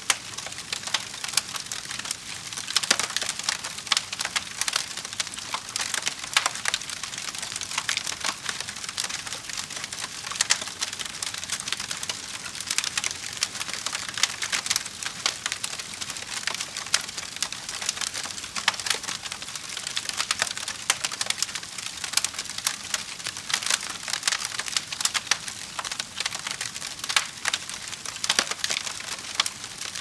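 Wood fire burning in a fireplace, crackling steadily with frequent sharp snaps and pops from the burning logs.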